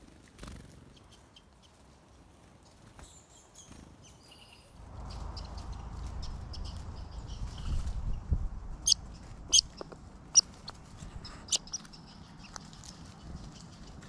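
Faint, short high chirps of small songbirds, then a low rumble from about five seconds in. Between about nine and twelve seconds come four loud, sharp, very short high chirps.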